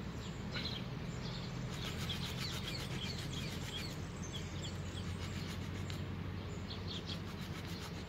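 Splitman GHK6 multitool's small saw blade sawing back and forth through a thin stick: a faint rasp of teeth on wood. Birds chirp faintly in the background.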